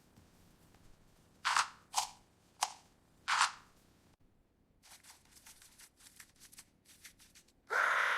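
A cartoon character hiccuping four times in quick, uneven succession, then a run of light rapid clicks and ticks, and a louder sudden sound near the end.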